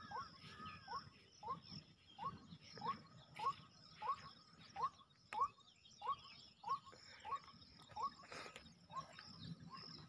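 Faint, short rising chirps repeating at an even pace, about one and a half a second, over a faint steady high hiss.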